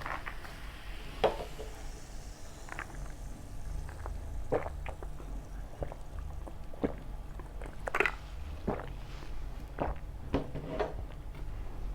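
Pizza being bitten and chewed close to the microphone: about ten irregular short crisp crunches and clicks over a steady low hum.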